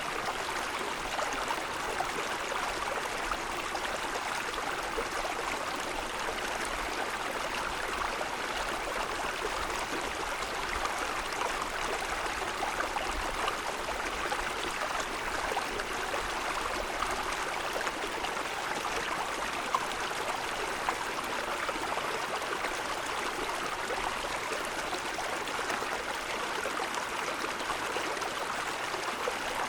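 Mountain stream running over snow-covered stones, a steady rushing and babbling of water.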